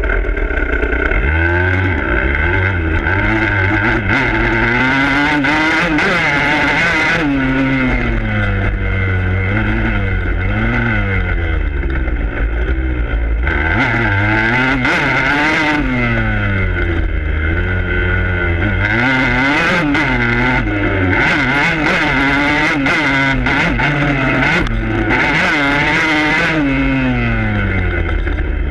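Dirt bike engine heard from its handlebars, revving up and dropping back over and over as the bike is ridden hard around a motocross track.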